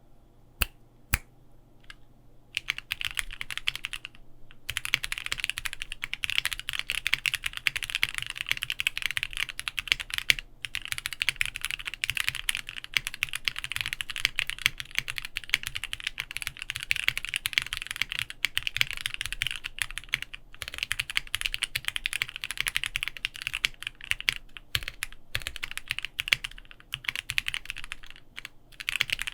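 Fast typing on a Bakeneko60 mechanical keyboard with lubed Gateron Ink Black V2 linear switches, an FR4 plate and GMK keycaps: two single keystrokes, then a steady stream of key clicks from about two and a half seconds in, broken by a few brief pauses.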